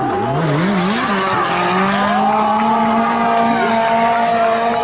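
A car engine revving hard, its pitch bouncing quickly up and down for the first second or so, then held at steady high revs, over a hiss of tyre noise.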